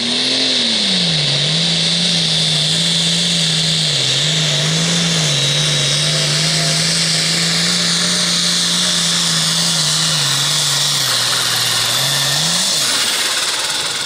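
Limited Pro Stock pulling tractor's turbocharged diesel engine running hard under load, its pitch rising at the launch and then holding nearly steady with small dips, over a high whine. Near the end the revs climb briefly and then fall away as the throttle comes off.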